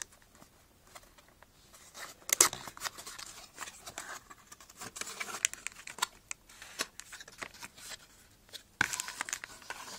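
Cardboard box being torn open and handled by hand: irregular tearing, scraping and clicking of the paperboard, loudest about two and a half seconds in and again near the end.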